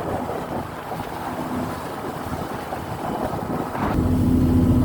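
Wind buffeting the microphone with water noise on a moving boat; about four seconds in, a steady low engine hum comes in and grows louder.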